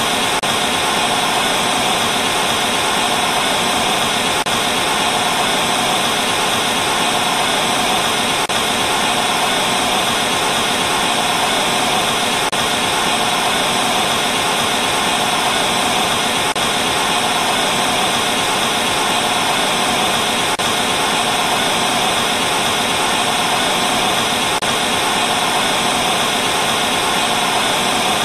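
Steady TV static: the hiss of an analogue television tuned to a channel with no signal, unbroken and even in level, brightest in the upper-middle range.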